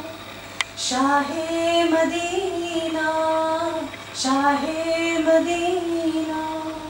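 A woman singing a naat, an Urdu devotional song, solo and without instruments, in long held, ornamented lines. There are two phrases, the second beginning about four seconds in. A single sharp click comes about half a second in.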